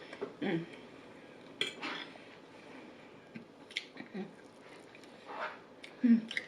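Cutlery clinking and scraping on a plate, a few separate clicks.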